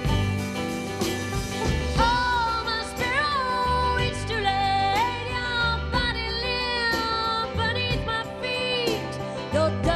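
A song with a woman singing sustained, gliding notes over instrumental backing with a steady bass.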